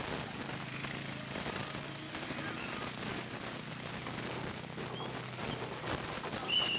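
ATV four-wheeler engine running close by with a low steady note, under a dense crackling hiss, with one short high squeak near the end.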